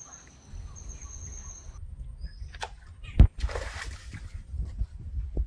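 Birds chirping, then about three seconds in a sharp knock followed by a short splash as a hooked fish breaks the surface of the pond.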